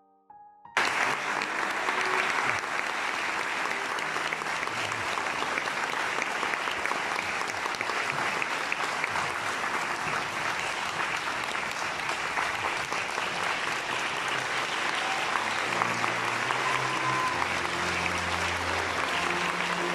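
Theatre audience applauding steadily after a stage performance, the clapping starting suddenly about a second in; a few faint low musical notes come in under it near the end.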